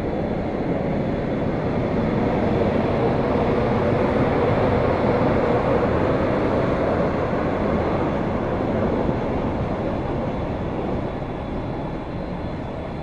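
Train crossing the steel railway high bridge overhead: a broad, steady rumble that swells to a peak about four to five seconds in, then slowly fades.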